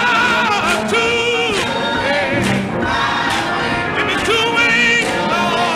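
Live gospel music from a 1959 church recording: a choir and a male tenor lead singing with piano and guitar, the voices holding long notes with a wavering vibrato.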